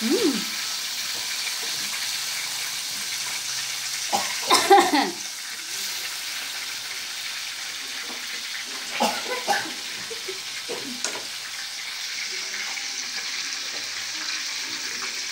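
Chili sambal sizzling steadily as it fries in oil in a nonstick frying pan, stirred with a wooden spatula.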